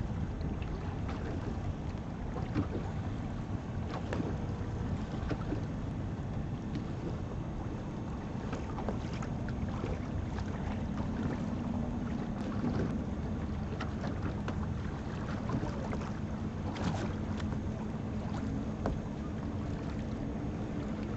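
Wind buffeting the microphone and water washing and splashing around a boat under way on choppy water, with a faint steady hum coming in about halfway through.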